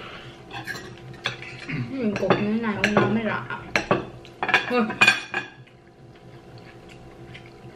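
Knife and fork clinking and scraping on ceramic dinner plates as steak is cut, in a series of sharp clicks that are loudest about four to five seconds in. A short wavering tone sounds about two seconds in.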